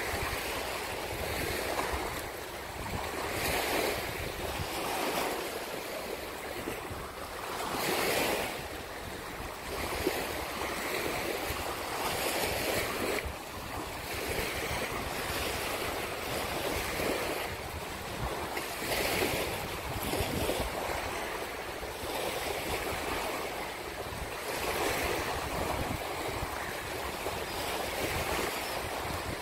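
Small waves washing up on a sandy beach in irregular surges, with wind buffeting the microphone.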